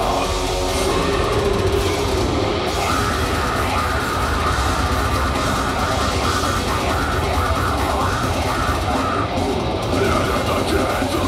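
Deathcore band playing live, heard from the audience: heavily distorted guitars and drums, loud and dense with no break.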